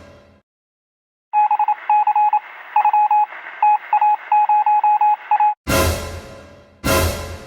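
Edited-in sound effects. A run of short and longer beeps at one steady pitch, in an uneven Morse-code-like rhythm with a thin, radio-like tone, runs from about a second in to over five seconds in. Then come two sudden heavy hits with a deep low end, each ringing out and fading.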